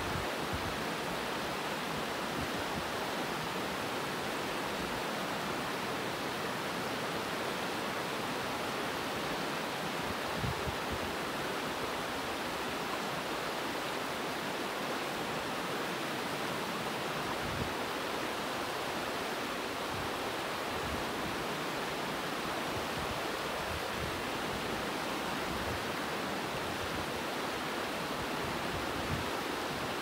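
Ausable River running over shallow rocky rapids: a steady, even rush of water.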